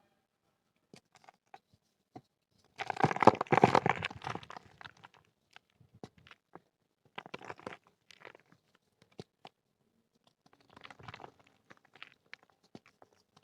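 Dry red clay crumbling and crunching: a loud burst of crumbling about three seconds in, then several smaller crumbles with scattered crackles and ticks between them.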